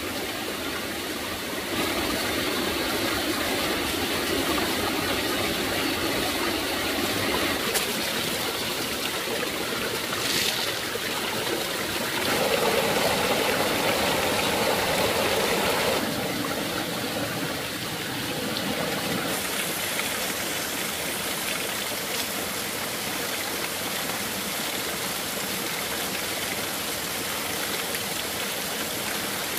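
A small forest stream running and splashing over rocks: a steady rushing of water that gets louder or softer abruptly a few times.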